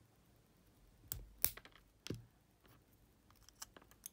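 Brittle plastic disc chuck on a Sony D311 Discman spindle motor snapping and cracking as small pliers break it off in pieces: three sharp cracks starting about a second in, the loudest at about a second and a half, then a few lighter ticks near the end.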